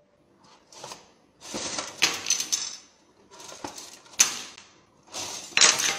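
Plastic forks clattering and scraping on a hard surface in four short bursts, each with a sharp click or knock.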